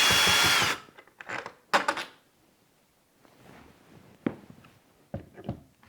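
Ryobi cordless drill running as it backs out a deadbolt mounting screw, stopping just under a second in. A few scattered light clicks and knocks follow as the loosened screw and lock hardware are handled.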